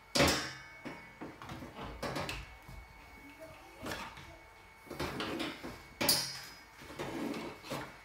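A series of irregular knocks and clunks, about one a second, the loudest just after the start and another about six seconds in, over a faint steady high whine.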